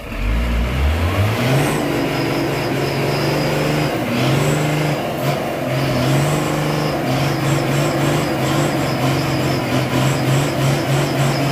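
Hino 500 dump truck's diesel engine revving up over the first second or so, then held at high revs under heavy load as it pulls through deep mud, the note rising and falling slightly. A faint high whine comes and goes over it.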